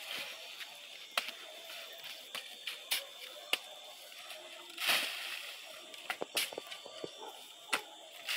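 Shovel digging into sand and throwing it onto the kiln mound: scattered small knocks and scrapes, with two longer gritty swishes about five seconds in and at the end. A faint steady high whine runs underneath.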